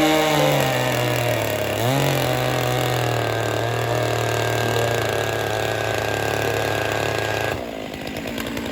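Chainsaw engine running at high revs, dipping in pitch briefly about two seconds in and recovering, then holding steady. It falls off and changes near the end.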